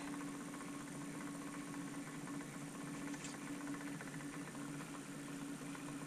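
Small electric motor of a tumbler cup turner running with a steady hum as it slowly rotates the cup.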